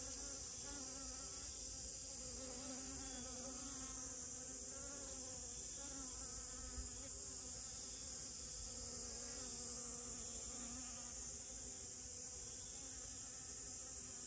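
Honeybee buzzing as it forages among flowers: a low hum that wavers in pitch and comes and goes, over a steady high-pitched insect chorus.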